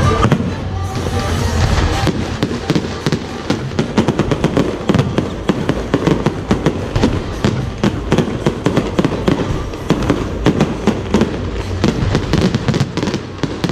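Aerial fireworks going off in a dense crackle of sharp pops and bangs in quick, irregular succession, thickening about two seconds in.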